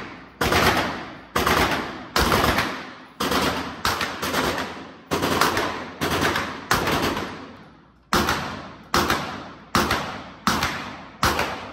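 Gunshots at a shooting range: a string of single shots fired about one to two a second, each with a long echoing tail, with a short pause about two-thirds of the way through.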